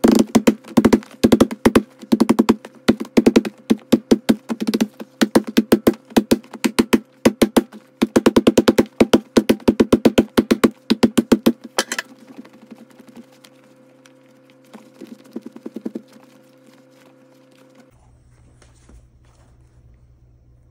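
Rapid, sped-up series of sharp thuds from a stiff leather pro baseball glove being pounded to break in its hinges and pocket, stopping about twelve seconds in, with a few softer thuds a few seconds later. A steady hum runs underneath and stops near the end.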